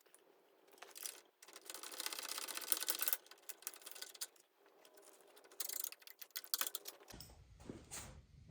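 Wrenches working a 9/16-inch bolt off a motorcycle engine mount: two spells of rapid metallic clicking, one about a second and a half in lasting nearly two seconds, another around six seconds in.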